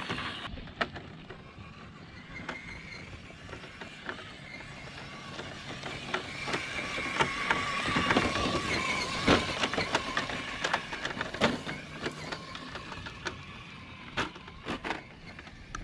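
The electric drivetrain of an Element RC Enduro Knightrunner 1/10-scale crawler whines with its 5-slot motor under load. The whine rises in the middle and then eases off. Tyres click and crackle over rock and grit throughout.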